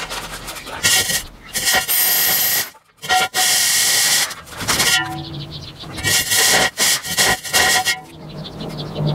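Electric drill driving a diamond core bit through brick masonry, a loud grinding whine with a steady pitched note in it. It runs in bursts, stopping and starting several times, with a short break about three seconds in.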